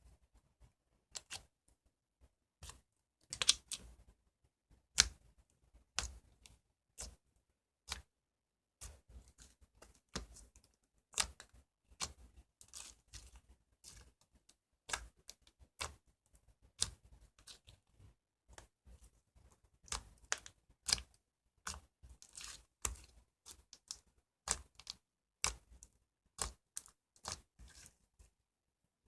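Slime made with green Elmer's glue being squeezed and pressed by hand, giving irregular sharp clicks and pops with short pauses between them.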